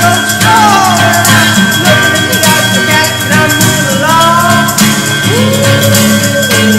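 Upbeat music with a steady beat and percussion, over which a voice or melody line slides up and down in pitch.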